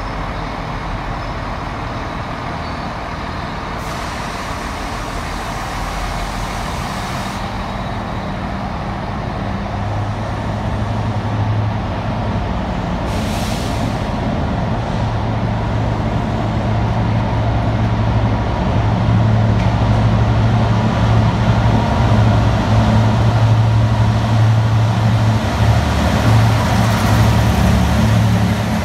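Diesel locomotive engine under power as it propels a passenger train away, a steady low drone that grows louder through the second half as the locomotive at the rear comes by. Two short spells of hissing, about four and thirteen seconds in.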